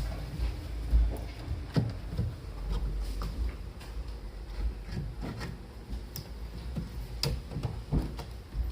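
Irregular light knocks and clicks of wooden dresser parts being handled and set against each other, about one a second, over a low handling rumble.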